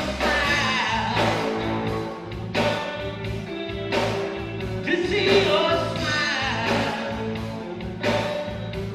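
Band music with a steady beat and a melodic lead line.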